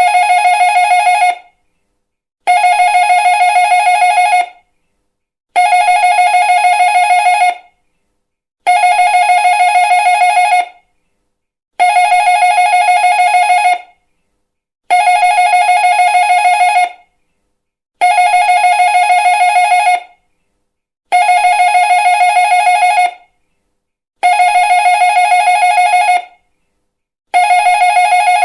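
Electric doorbell ringing over and over. Each ring is a fast trilling tone about two seconds long, followed by about a second of silence.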